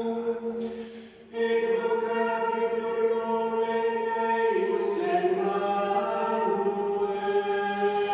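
A small choir of four voices singing slow, long-held chords. There is a short break for breath about a second in, and the chord shifts about four and a half seconds in.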